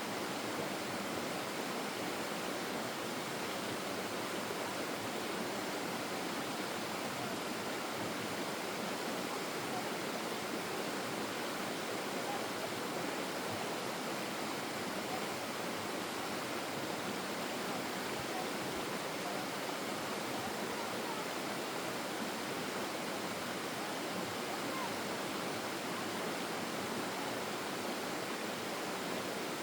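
Forest stream flowing: a steady, even rush of running water.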